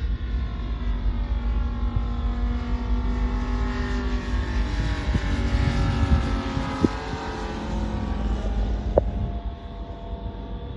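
UMS 125 cc engine of a quarter-scale Focke-Wulf 190 model plane running in flight as the plane flies past. Its pitch climbs to a peak around the middle and then drops away.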